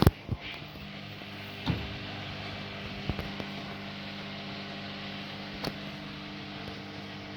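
Haier HW100-1411N washing machine running with a steady motor hum over a rushing noise, broken by a few sharp knocks, the loudest right at the start.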